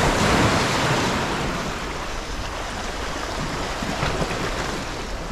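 Sea waves breaking and washing over shoreline rocks. One surge is loudest in the first second, then settles into a steady wash.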